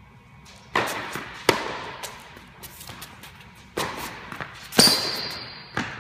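Tennis balls hit with rackets and bouncing on an indoor hard court: five sharp pops that echo through the hall, the loudest about three-quarters of the way in, followed by a brief high squeak.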